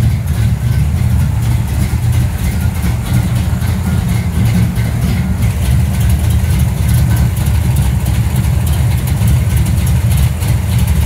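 A 1969 Dodge Super Bee's 440 Six Pack big-block V8 idling steadily, a loud low rumble heard up close under the open hood.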